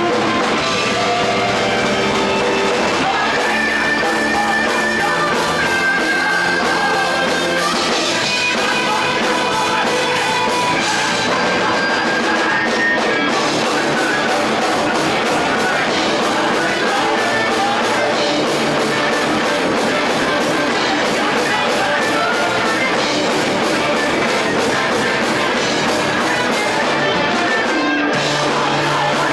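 Rock band playing live and loud without a break: electric guitars over a drum kit.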